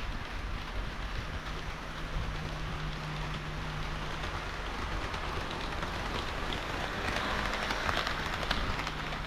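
HO-scale model train running along the track: a steady rolling rush of small wheels on rail with fine clicking and a low motor hum, growing louder for a moment near the end.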